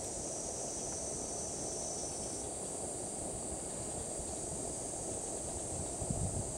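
Steady high-pitched insect chorus with a low, even rumble beneath it. A thin high tone in the chorus drops out about two and a half seconds in, and a few soft knocks come near the end.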